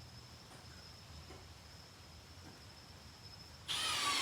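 Quiet shop room tone with a faint steady high-pitched whine. Near the end a sudden loud, noisy sound cuts in and carries on.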